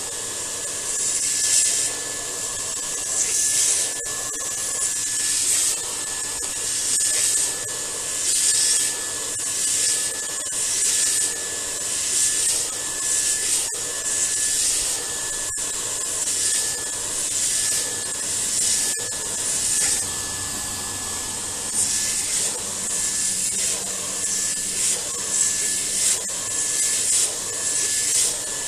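TubQ TS1 central vacuum running with a steady high whine while its hose nozzle is worked back and forth between the pleats of the cartridge filter, the suction hiss swelling and scraping in repeated strokes about once a second as dust is sucked out of the clogged filter.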